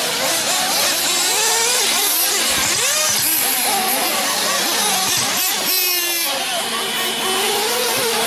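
Several RC truggies racing: their motors whine as they rev up and down, many overlapping at once. One passes close about six seconds in with a sharp rising whine.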